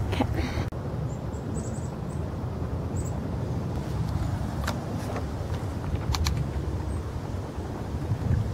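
Wind rumbling on the microphone, a steady low rumble, with a few scattered clicks from the camera being handled.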